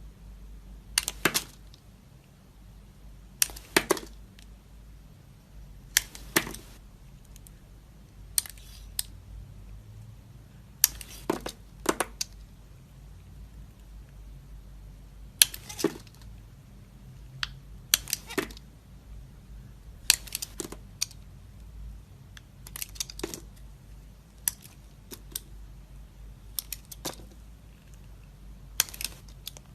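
Dry soap being cut with a knife: a crisp, crunchy crackle of a few snaps every two to three seconds, about a dozen cuts in all.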